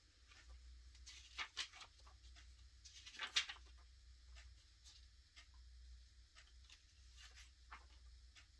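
Faint, scattered clicks and light handling noises from the buttons and case of a projection alarm clock being pressed and handled, the loudest click about three seconds in, over a low steady hum.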